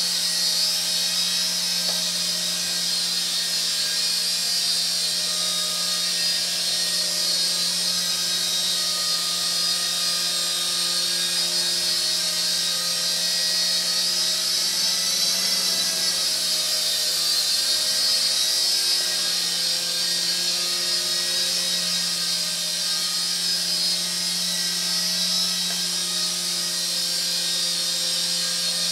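KY202 toy coaxial RC camera helicopter in flight, its small electric motors and twin rotors giving a steady high-pitched whine over a low hum that swells slightly midway.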